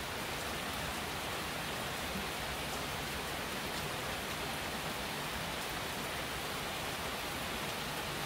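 Steady heavy rain falling: an even, continuous hiss of rain.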